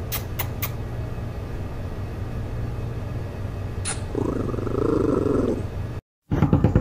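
Small dog making one short pitched vocal sound, a whine or grumble lasting a bit over a second, about four seconds in. It sits over a steady low hum, with a few light clicks at the start.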